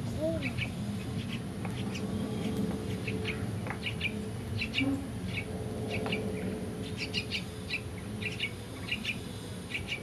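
Nestling songbirds begging with short, high chirps in quick clusters every second or so as the parent feeds them at the nest.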